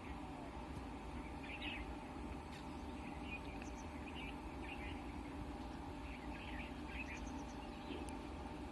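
Short bird chirps, several in quick clusters, over a steady low background rumble.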